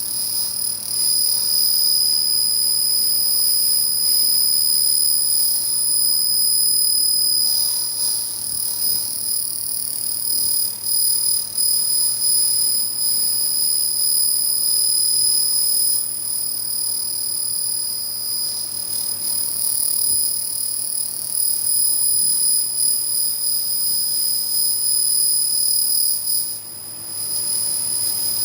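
Pulsed laser cleaner ablating rust and scale from the end of a steel rail: a steady high-pitched whine over a low hiss, unbroken throughout.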